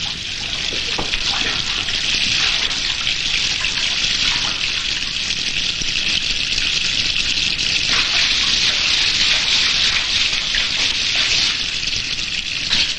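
Water running steadily from a tap into a bathtub as it fills.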